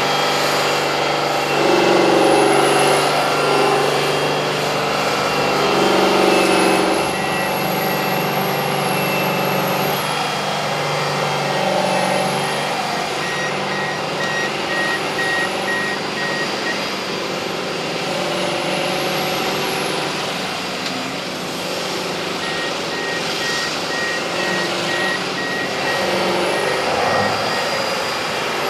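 Heavy dump truck engine running steadily, with a reversing alarm beeping at an even rate in two long stretches. A high whine rises and falls several times over it.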